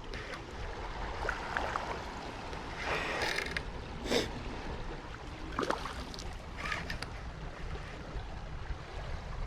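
Wind buffeting the microphone over a steady rush of moving water, with a few brief sharp noises about three, four and six seconds in.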